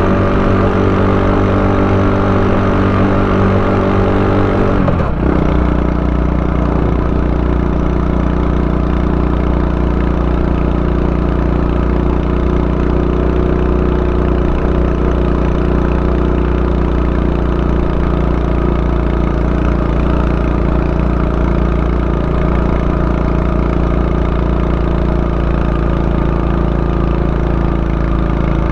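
Honda Super Cub 90's small single-cylinder four-stroke engine running steadily. About five seconds in its note drops suddenly to a lower pitch, then holds steady.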